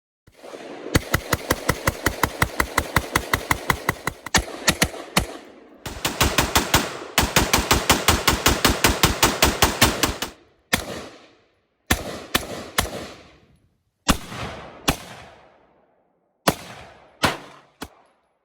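AR-15-style rifle fitted with an aftermarket rapid-fire trigger, firing two long, very fast strings of shots. These are followed by a handful of single and paired shots, each with a trailing echo.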